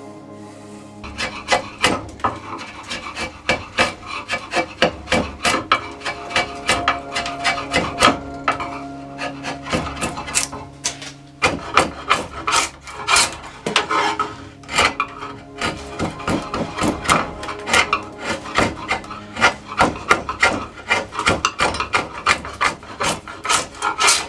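Wood rasp worked in quick, even strokes, about three a second, over Osage orange bow wood as the bow is shaped. Background music with held notes plays underneath.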